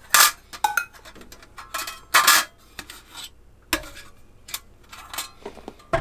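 Stainless-steel parts of a Uniflame Fire Grill solo fire pit clinking and clattering as they are handled: the perforated charcoal plate knocking against the firebox body. A string of separate metallic knocks, the loudest about two seconds in.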